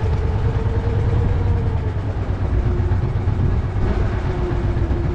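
Fishing boat's engine running steadily: a low rumble with a faint hum that settles slightly lower in pitch about two seconds in.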